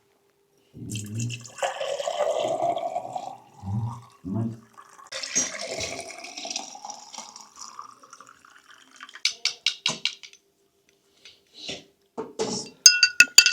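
Water splashing and pouring in a vessel, with a few dull knocks, then a quick run of clicks and, near the end, ringing metallic clinks.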